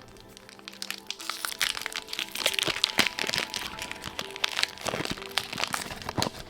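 Rapid crinkling and crackling of foil trading-card pack wrappers and cards being handled, over steady background music.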